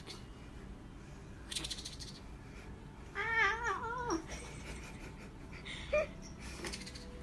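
Black-and-white cat giving one wavering, drawn-out yowl about three seconds in, lasting about a second, while held on its back and squirming. A few brief noisy bursts come before and after it.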